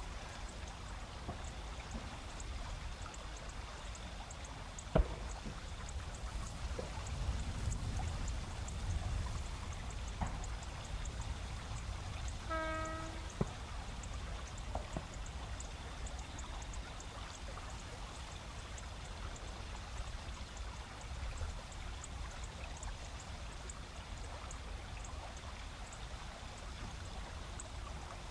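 Steady rush of a river's shallow rapids, with autumn insects chirping faintly in an even, high ticking. About halfway through, a single short pitched tone sounds once.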